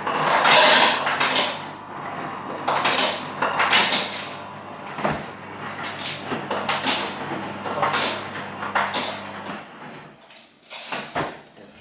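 Items being moved about inside an open kitchen fridge, with repeated clinks and knocks of bottles and containers. A steady low hum runs underneath and stops near the end, followed by a few sharper knocks.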